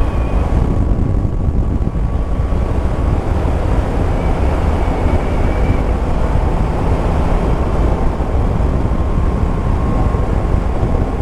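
Yamaha Tracer 9 GT's three-cylinder engine running at a steady cruising speed, mixed with a continuous rush of wind on the bike-mounted camera's microphone.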